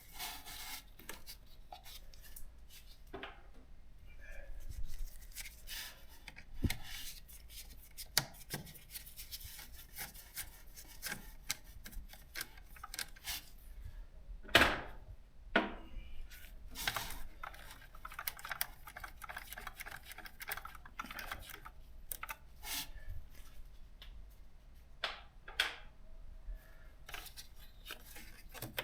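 Hand work on a scooter's battery compartment: scattered clicks, knocks and rubbing of tools and parts being handled, with the sharpest knock about halfway through.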